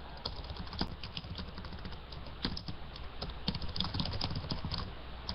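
Typing on a computer keyboard: a run of irregular keystroke clicks, picked up by a video-chat participant's microphone over a steady low hum.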